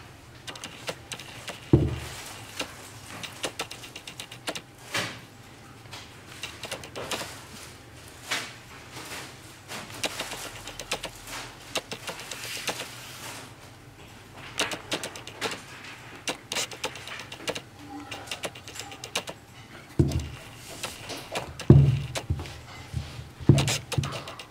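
Adidas Yeezy 500 sneakers being handled and turned over: scattered clicks, taps and rustling, with a dull thump about two seconds in and several more near the end.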